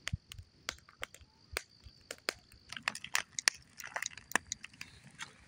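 Wood campfire crackling, with irregular sharp snaps and pops.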